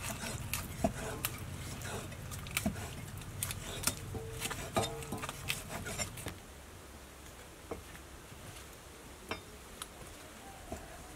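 Knife cutting raw beef on a wooden chopping block, with irregular knocks and taps of the blade against the board. The knocks come thickly at first and thin out to a few scattered taps after about six seconds.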